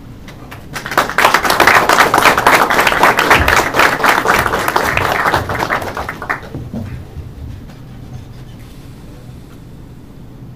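Audience applauding, starting about a second in and dying away after about five seconds.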